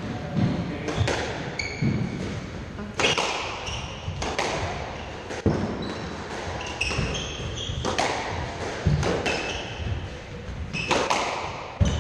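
Squash rally: the ball cracks off the rackets and walls every second or so, each strike echoing around the court, with shoes squeaking and feet thudding on the wooden floor between shots.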